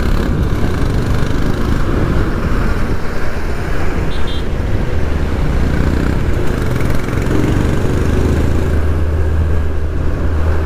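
Steady road and wind noise from a TVS Jupiter scooter under way on a hill road, with its small engine and nearby traffic underneath. About halfway through, a low drone from a truck alongside swells up and holds.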